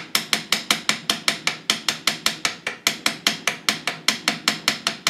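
A hammer tapping rapidly and lightly on the steel 5th-and-reverse assembly of an R380 gearbox, about seven even, sharp metallic taps a second, to persuade the stuck assembly off its shaft. The speaker suspects a burr at the grub screw hole may be what holds it.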